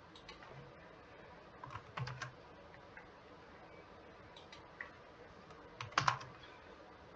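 Faint computer keyboard keystrokes and mouse clicks: scattered single clicks, a short group about two seconds in, and the loudest quick run of keystrokes about six seconds in.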